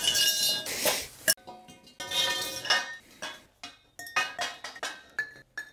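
Lengths of square steel tubing knocking and clinking together on the floor as they are laid out and pushed into place, a series of sharp metallic knocks each followed by a short ring.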